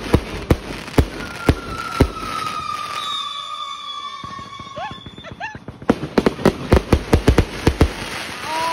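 Fireworks going off: sharp bangs about every half second, a long whistle sliding down in pitch, then a rapid crackle of firecrackers from about six seconds in.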